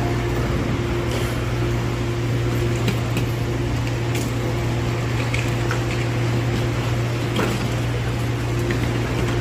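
Steady electrical and ventilation hum inside an MTR Airport Express train carriage. A constant low drone, a higher steady tone above it and a few faint clicks; the pitch neither rises nor falls.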